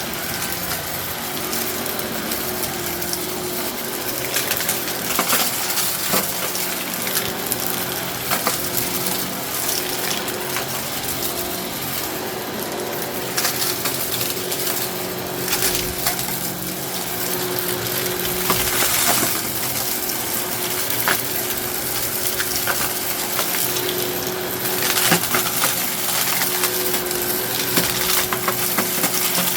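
Eureka Innova NEU700 upright vacuum running, its brushroll picking up aquarium gravel that rattles and clicks irregularly through the machine over the steady motor note.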